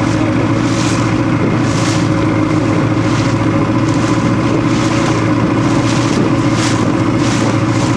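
Boat engine running steadily with a low drone, with a short rush of hiss, like water spray, about once a second.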